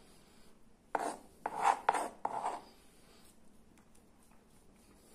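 Chopped ginger being scraped off a cutting board into the mixture, in about four quick scraping strokes starting about a second in.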